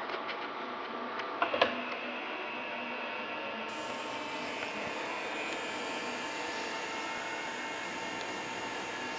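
Sony 3LCD projector's cooling fan running steadily, a whirring hiss with a faint steady whine. A couple of sharp clicks about a second and a half in.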